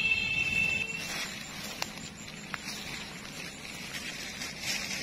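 A hand rustling through wet grass and weeds, with two sharp clicks and a short louder rustle near the end. A steady high-pitched tone stops about a second in.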